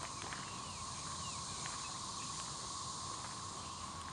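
Quiet woodland ambience: a steady insect drone over an even hiss, with a few faint chirps about a second in.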